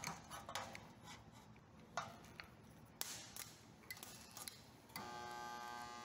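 Resistance spot welder: a few faint clicks and taps as the copper electrode arms are set on the steel panel, then about five seconds in a steady electric buzz starts as the welder passes weld current through the joint.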